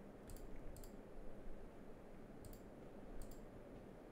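Computer mouse clicking four times, each a quick press-and-release pair, as alphas are selected in the software, over a faint steady low room hum.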